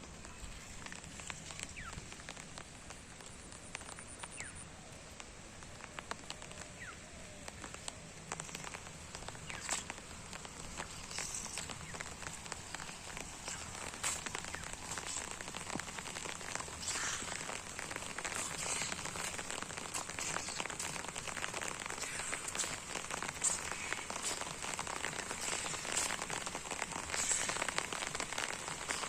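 Rain falling, with many separate drop hits, growing louder and heavier from about a third of the way in.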